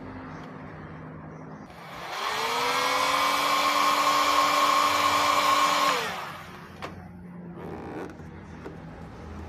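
An electric hot-air blower switches on about two seconds in. Its motor whine rises quickly to a steady pitch over a rush of air, runs for about four seconds, then winds down and stops.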